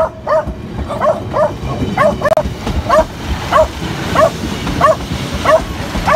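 A dog barking over and over, roughly one to two barks a second, over the low rumble of a Class 156 diesel multiple unit passing close by.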